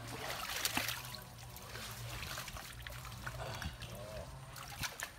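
Muddy water splashing and trickling as handfuls of mud are scooped from the pool and rubbed onto an elephant's skin, with a few short splashes.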